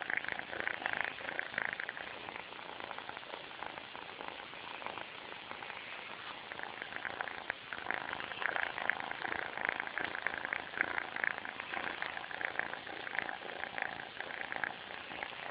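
Sleeping kitten snoring, very loud, in a steady run of rhythmic pulses that ease off for a few seconds early on and then grow stronger again.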